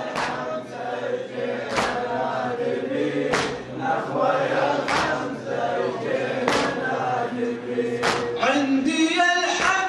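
A male reciter and a congregation chant a Shia devotional nakhwa refrain together, held notes in a slow melody. Six sharp strikes at an even pace, about one every one and a half seconds, keep the beat under the voices.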